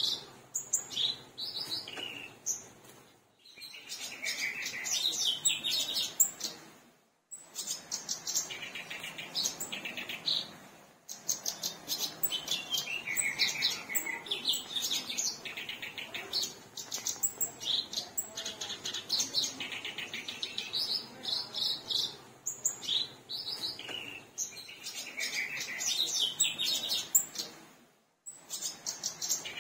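Black-browed reed warbler (kerakbasi alis hitam) singing a long, fast, chattering song of harsh repeated notes, with a few brief pauses.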